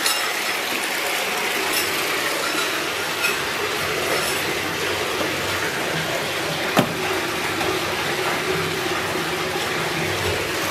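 Water pouring steadily from a freestanding tub's filler spout into the nearly full bathtub, filling it to test the drain overflow. A single sharp click comes about seven seconds in.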